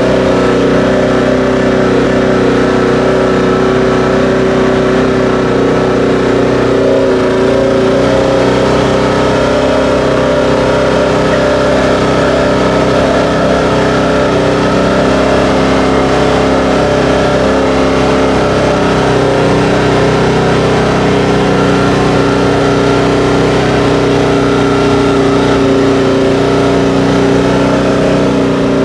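Vehicle engine running loud and steady at an unchanging speed, as on a drive at constant pace.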